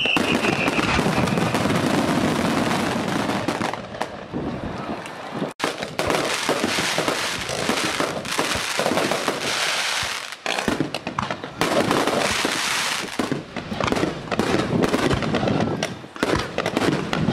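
Fireworks display: a dense barrage of aerial shells bursting, with rapid bangs and crackling throughout. A falling whistle fades out in the first second, and there is a momentary dropout about five and a half seconds in.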